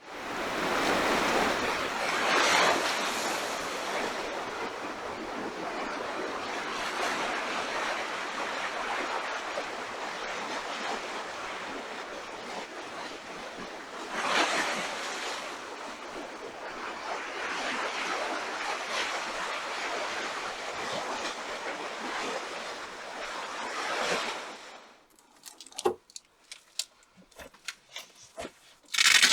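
Ocean waves breaking and washing on the shore, a steady surf noise that swells with each incoming wave, about five larger surges. It cuts off abruptly near the end, leaving quiet with a few small clicks and knocks.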